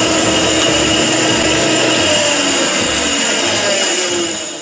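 Shopsmith band saw running with a 1/4-inch blade, cutting through a block of wood. The steady saw noise fades out near the end.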